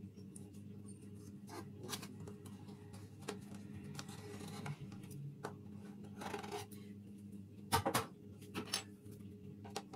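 A knife scraping around the inside edges of a cake mould to loosen a baked pound cake, in many short faint strokes, with a few sharper knocks about eight seconds in.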